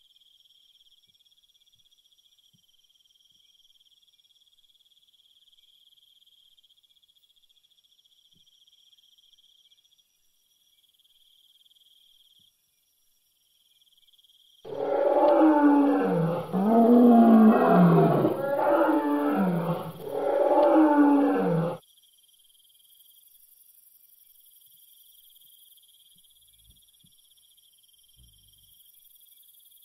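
A dinosaur roar sound effect: several long, pitch-bending roars one after another for about seven seconds, starting about halfway through. A faint, steady cricket-like chirring runs underneath as background ambience.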